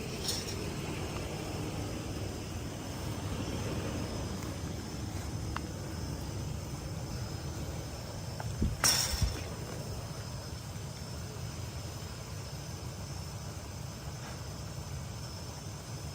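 Night insects chirring steadily over a low rumble, with a short cluster of sharp knocks about nine seconds in.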